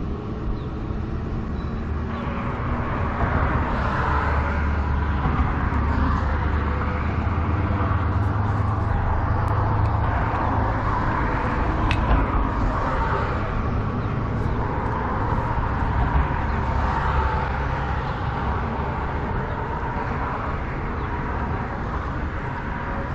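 Steady rumble of road traffic, swelling for several seconds in the middle as a heavier vehicle goes by.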